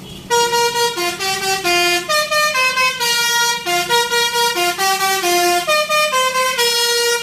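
Basuri telolet horn on a tour bus playing a melody: a quick run of held air-horn notes stepping up and down in pitch, starting just after the beginning and cutting off abruptly at the end.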